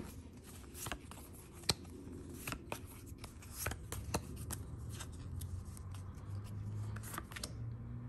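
Pokémon trading cards handled by hand: a stack of booster-pack cards being flipped through and slid one behind another, giving light, irregular card snaps and rustles.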